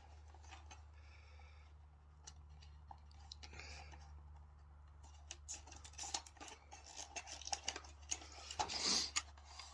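Nylon cable tie being threaded and drawn through its ratchet head on a plastic cupholder mechanism: faint handling at first, then a quick run of small sharp plastic clicks in the second half. A steady low hum sits underneath.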